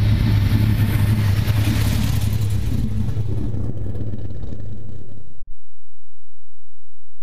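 Dodge Ram SRT-10's 8.3-litre V10 running with a deep rumble, its sound fading over a few seconds. About five and a half seconds in it cuts off abruptly and a steady low electronic hum takes over.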